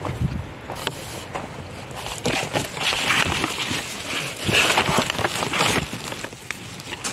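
Rustling and crackling as broad bean plants and a paper bag are handled while pods are picked, with scattered small snaps and clicks. The noise is thickest about three seconds in and again around five seconds.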